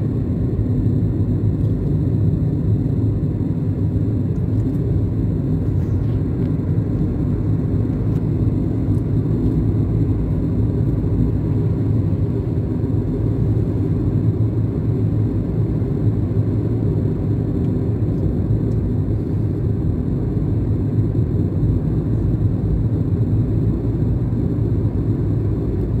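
Car driving along an asphalt road, heard from inside the cabin: a steady low rumble of engine and tyre noise.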